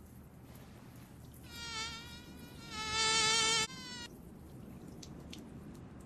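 Mosquito's high whining buzz flying close by the ear, wavering slightly in pitch. It comes in about a second and a half in, grows loud around three seconds and cuts off suddenly just before four seconds.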